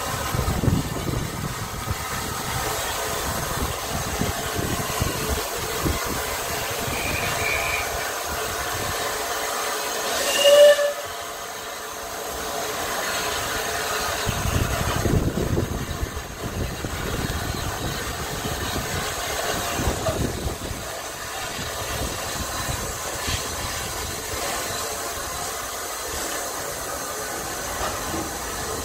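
Steam locomotive Eddystone, a Bulleid West Country class pacific, pulling its train slowly away from a station, heard from aboard the train as a steady hiss of steam and train noise. A short, loud whistle sounds about ten seconds in.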